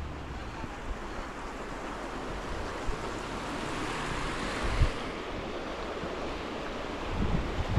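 Steady rushing road and wind noise of a moving vehicle, with a couple of brief low thumps, one about five seconds in and another near the end.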